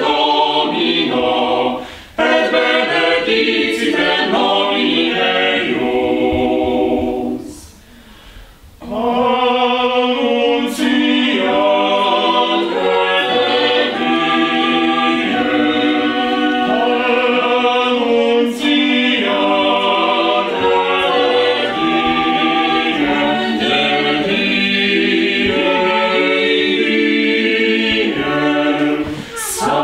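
Mixed-voice a cappella vocal ensemble of women and men singing in several-part harmony, breaking off briefly about eight seconds in before going on.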